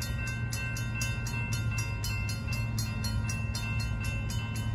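Railroad grade-crossing bell ringing in quick, even strokes, about four a second, over a low steady rumble from the approaching train.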